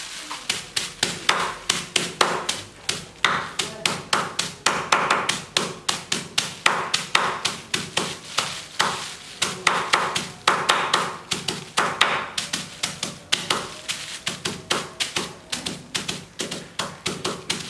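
Sliced ginger in a plastic bag being pounded by hand with a hard object, a steady run of sharp tapping blows, several a second, to crush it so its juice comes out.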